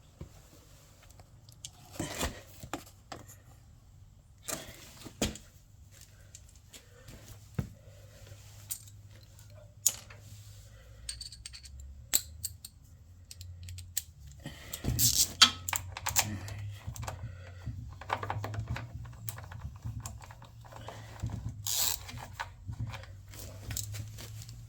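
Metal hand tools clinking and clicking on the engine as a small bolt is worked loose with an 8 mm spanner or socket. Scattered sharp clicks and knocks give way to a denser run of rapid clicking about fifteen seconds in, over a faint steady low hum.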